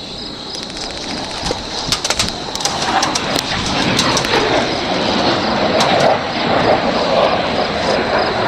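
Jet aircraft roar building steadily louder overhead, with sharp clicks and rustles close by in the first few seconds.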